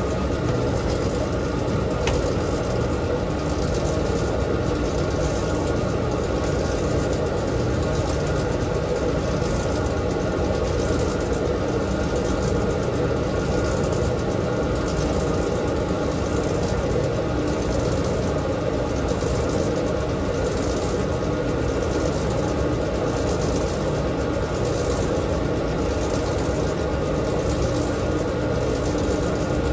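Dexter T900 commercial front-load washer spinning its drum at speed: a steady motor hum with the rush of the turning drum, running without pauses or reversals.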